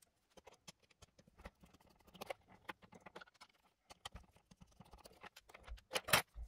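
Faint, scattered clicks and light taps of a small plastic GPS module case being handled and its back cover taken off, with a louder click about six seconds in.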